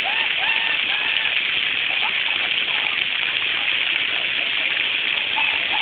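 Waterfall rushing: a steady, loud hiss of falling water, with faint voices calling out in the first second and again near the end.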